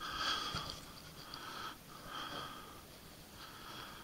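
Soft, even breathing, about one breath every second or so.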